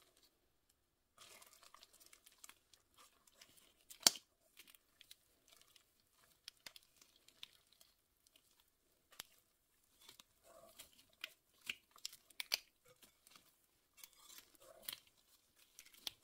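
Wire whisk stirring chocolate chips and chopped walnuts into thick banana cake batter in a bowl: wet scraping and squishing with irregular clicks of the whisk wires against the bowl, the sharpest about four seconds in.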